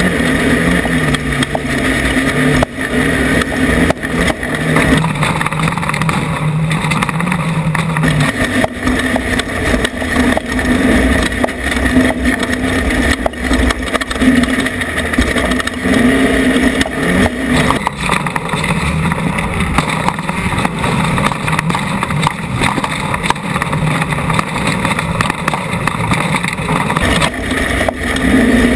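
Off-road race vehicle's engine running hard through a lap, its pitch shifting up and down with the throttle, over a constant din of rattles and knocks.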